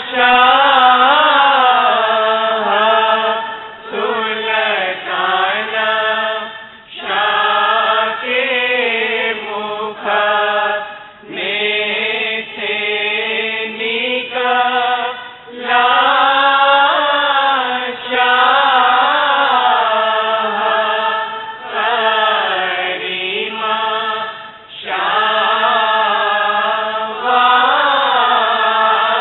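Devotional prayer chant sung in long melodic phrases of about three seconds each, with brief pauses for breath between them.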